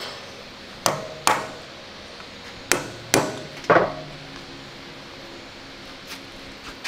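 Five sharp hammer blows on a steel drift, each with a brief metallic ring, knocking a bearing race out through the hub of a Panzer I's cast steel road wheel.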